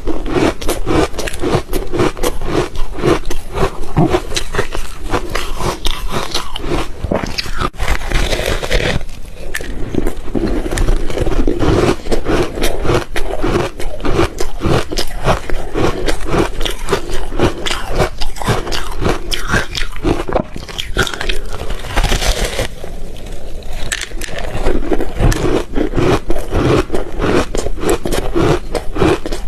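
Ice being bitten and chewed, a dense run of loud, sharp crunches that breaks off briefly twice.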